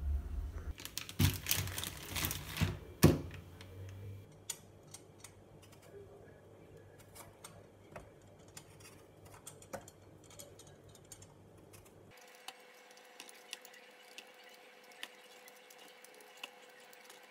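A metal spoon and fork clink and scrape against a stainless steel bowl, a few sharp knocks in the first three seconds. After that come faint, scattered ticks and scrapes of a hand vegetable peeler on a potato.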